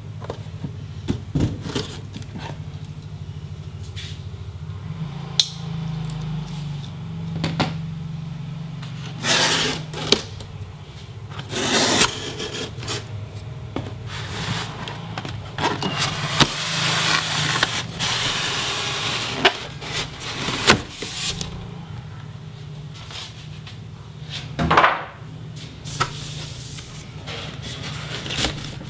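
Cardboard carton being unpacked by hand: a box cutter slits the tape, then the flaps, the styrofoam insert and a plastic sleeve scrape and rustle. The sounds come as a string of short scrapes with one longer rustle about halfway through, over a steady low hum.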